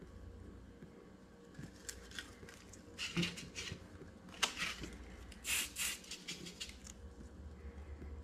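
Faint handling sounds of close bench work with a small paintbrush, an aerosol can and a plastic tray: scattered light ticks, a few short scrapes about three seconds in, and two short hisses a little after five seconds, over a low steady hum.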